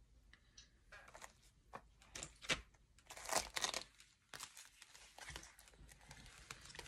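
Quiet paper and plastic rustling and crinkling in irregular bursts, with a few light taps, as a cash budget binder and its envelopes are handled.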